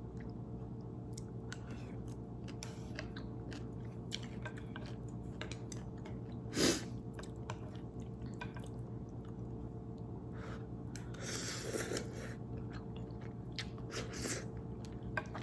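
Close-miked chewing of noodles: small wet mouth clicks and smacks, with one louder sound about six and a half seconds in. A steady low hum runs underneath.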